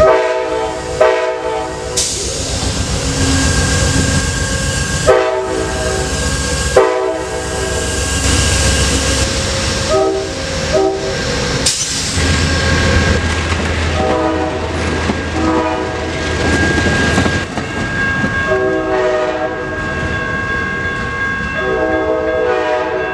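Horn of an Amtrak P42DC diesel-electric locomotive sounding about ten blasts, some short and some over a second long, as the train passes. Under it run the locomotive's low engine rumble and the clatter of wheels on the rails.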